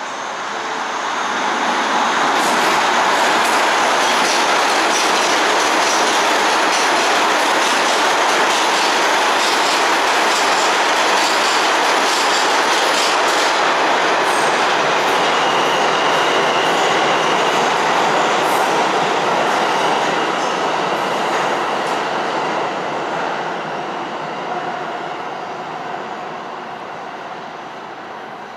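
New York City subway train running on the rails, its wheels clattering over the rail joints. The sound builds over the first two seconds, holds steady, then fades away over the last several seconds.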